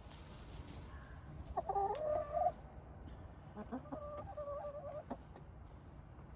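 Hens in a flock calling: two drawn-out, wavering calls, the first about a second and a half in and the second about a second later.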